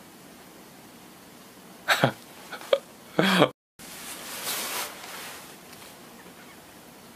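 A man makes two short, sharp coughing bursts about two and three seconds in, with small clicks between them, followed by a couple of seconds of rustling as he moves.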